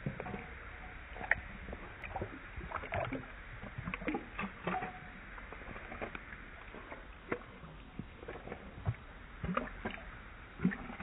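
Water splashing and sloshing in a stainless steel dog bowl as a dog noses and laps in it for treats, slowed down: irregular small splashes and drips, with a few louder splashes.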